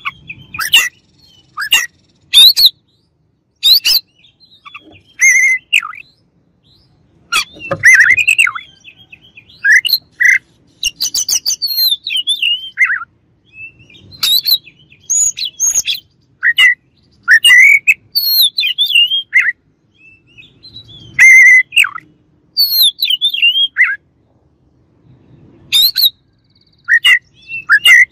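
Oriental magpie-robin singing a loud, varied song: short phrases of sharp whistles, chirps and scratchy notes, with brief pauses between them.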